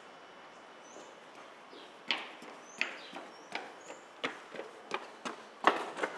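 Running footsteps of sneakers on a concrete floor, coming closer and getting louder, with the loudest hit just before the end. A few short, high bird chirps sound in the background.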